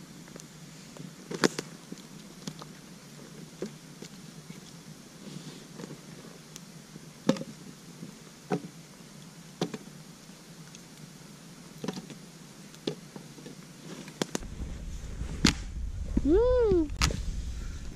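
Dry sticks clicking and knocking as they are laid and snapped over a smouldering campfire, with sharp pops every second or two. About three-quarters through, the background changes and the fire is heard burning with pops, and near the end a short voice-like tone rises and falls.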